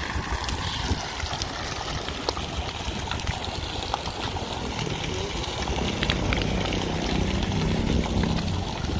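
Water jets of a park fountain falling and splashing steadily into the fountain's pool.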